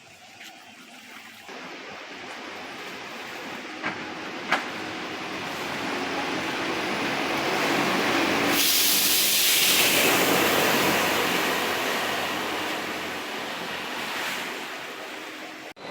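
An engine passing by: a low hum with a rushing noise that swells to a peak about nine to ten seconds in and then fades. Two short clicks sound around four seconds in.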